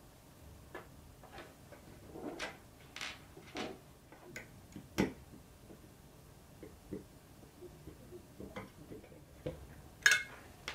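Small clicks, taps and handling noises of a CPU cooler's mounting bracket and wire fan clips being fitted to the heatsink, irregularly spaced. A louder sharp click comes near the end as a screwdriver goes onto the bracket's screw.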